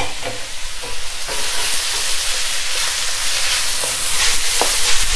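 Rice and chicken sizzling in a hot wok while a wooden spatula stirs and tosses them, scraping the pan with a few knocks. The sizzle grows louder about a second in and again near the end as the stirring picks up.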